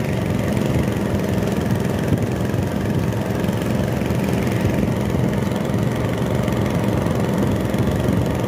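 Engine of a small wooden fishing boat running steadily while under way, with an unbroken low hum.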